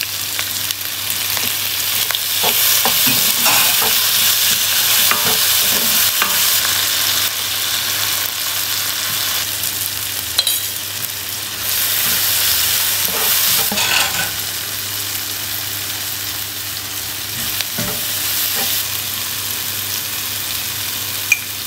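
Onions and tomatoes sizzling in oil in a nonstick frying pan, stirred with a wooden spoon, with a steady frying hiss and a few short knocks and scrapes of the spoon against the pan.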